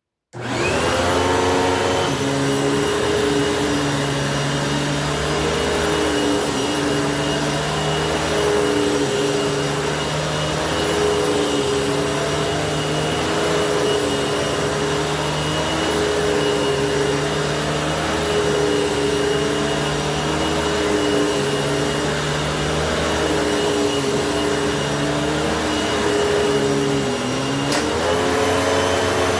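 Hoover WidePath Fold Away U5172-900 upright vacuum cleaner switching on and spinning up to speed, then running steadily with a high motor whine. Its pitch wavers slightly every few seconds, and there is a single sharp click near the end.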